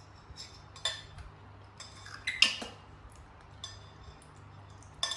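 Kitchenware clinking and clattering: scattered sharp knocks with a short metallic ring, three louder ones about a second in, halfway through and near the end, and lighter taps between.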